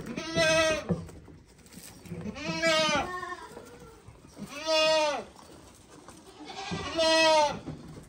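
Goat bleats, four long calls about two seconds apart, each rising and falling in pitch. The goats are calling for feed while being hand-fed crushed corn.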